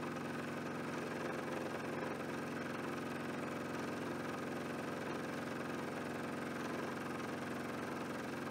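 Milling machine running steadily with a face-milling cutter taking a cut along an aluminium block: an even motor hum with the noise of the cut.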